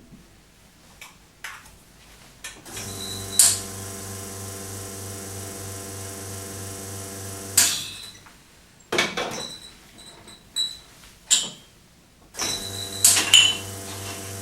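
Grind-on-demand coffee grinder motor running with a steady hum for about five seconds, followed by several sharp knocks and clicks of handling. Near the end a similar steady machine hum starts again.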